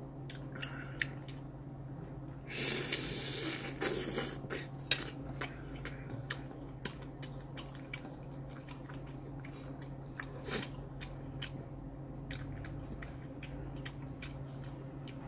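Cutlery clinking against dishes while eating, in many scattered light clicks, with a louder scraping rustle about three seconds in, over a steady low hum.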